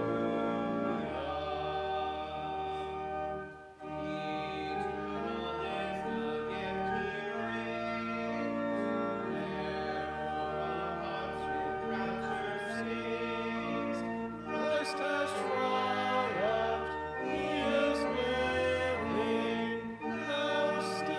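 Church music: voices singing over sustained, held chords, with a brief drop in level about four seconds in.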